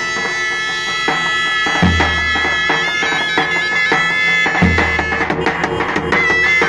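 Two zurnas playing a sustained melody together over a davul. The davul gives deep bass strikes about two seconds in and again near five seconds, with quick light stick taps between them.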